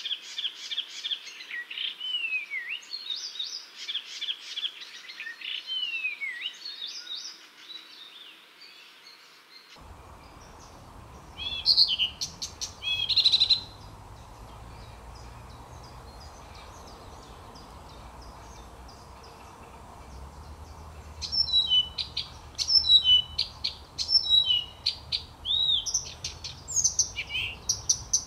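Blyth's reed warbler singing: phrases of short notes repeated in series, mixed with quick falling slurs, broken by pauses of several seconds. The song is nearly continuous at first, comes in a short burst around the middle, and picks up again for the last several seconds.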